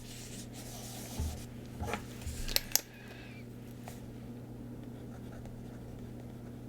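A few small clicks, taps and rustles of paper stationery being handled on a desk in the first three seconds, then only a steady low electrical hum.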